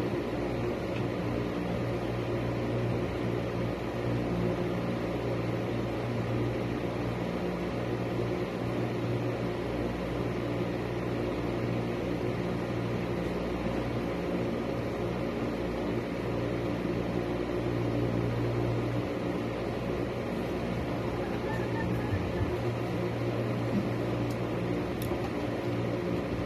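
Electric fan running close by with a steady hum.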